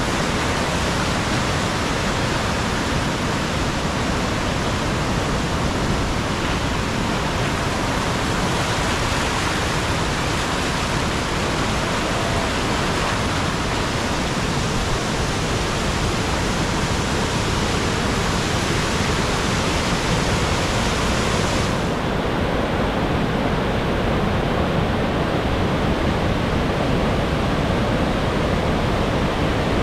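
Steady rushing roar of a waterfall. A little over two-thirds of the way through, the hiss in the upper range drops away abruptly and the rush becomes duller.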